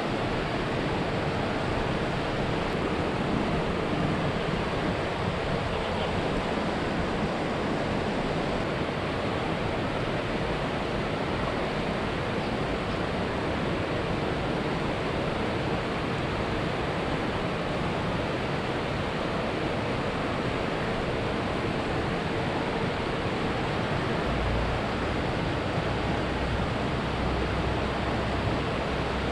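Steady rushing noise of flowing river water, with a low rumble coming in near the end.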